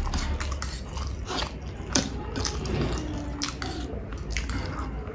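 A person chewing food close to the microphone, with many short wet clicks and smacks of the mouth, over a steady low hum.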